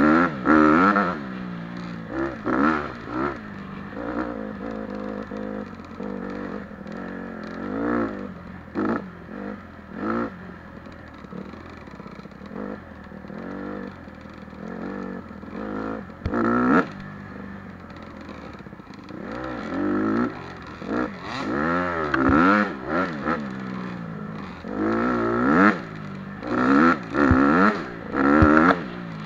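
Dirt bike engine being ridden hard, revving up and dropping back again and again, with calmer lower revs through the middle and a quick run of sharp rev bursts in the last third.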